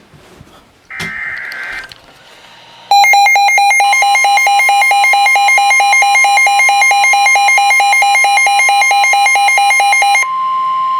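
Emergency weather alert for a flash flood warning on NOAA Weather Radio. About a second in comes a short burst of warbling SAME data tones; from about three seconds a loud, rapid beeping alarm sounds. The steady 1050 Hz warning tone starts beneath the beeping and carries on alone after it stops near the end.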